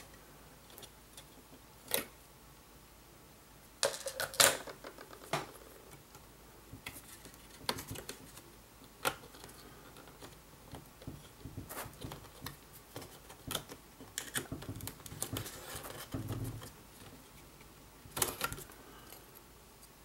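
Scattered small clicks and light clatter as the memory retaining clips of a 2012 MacBook Pro are released and the laptop memory modules are pulled out and handled, with no steady sound between.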